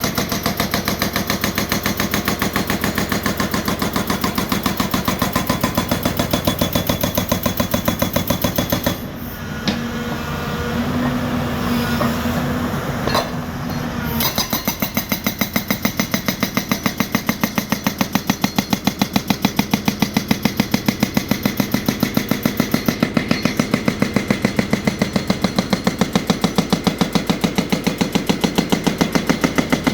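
Excavator-mounted hydraulic rock breaker hammering in rapid, even blows, stopping for about five seconds a third of the way in while the excavator's engine runs on, then hammering again.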